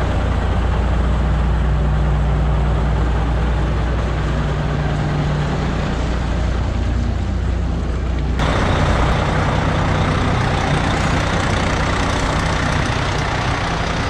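Heavy diesel truck engines running close by. For the first eight seconds or so a steady, low engine note; then, after an abrupt cut, a hissier mix of truck engine and road noise.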